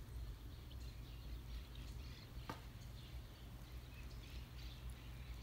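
Faint outdoor ambience: a steady low rumble with small birds chirping faintly now and then, and a single sharp click about two and a half seconds in.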